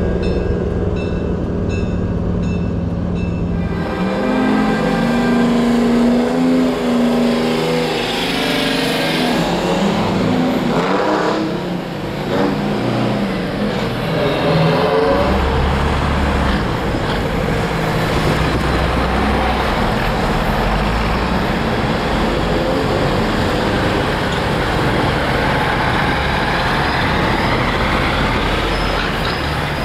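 Vintage diesel semi-truck tractors pulling away one after another, their engines revving up and dropping back as they shift through the gears. A deeper low rumble comes in about halfway through.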